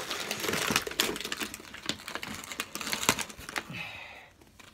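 Small plastic toy packaging being handled by hand: a quick, irregular run of clicks and crinkles that thins out and fades near the end.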